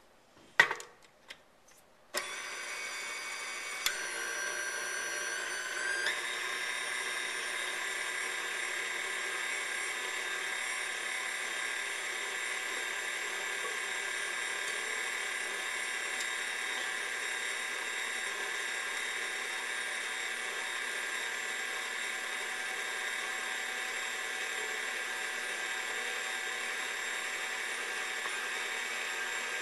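A few sharp knocks, then a KitchenAid stand mixer's motor starts about two seconds in, its whine stepping up in speed twice over the next few seconds before it runs steadily, working sticky bread dough with the dough hook.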